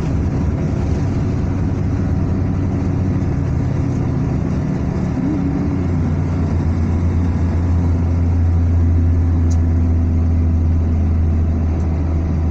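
Car driving along a highway: a steady low drone of engine and tyre noise, swelling a little about two-thirds of the way in.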